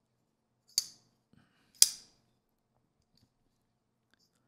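Oz Machine Company Roosevelt titanium frame-lock flipper knife being flicked and shaken shut: the blade snaps against its stops twice, two sharp metallic clicks about a second apart.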